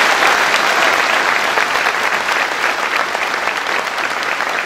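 A large crowd applauding, with dense, steady clapping that slowly tapers off toward the end.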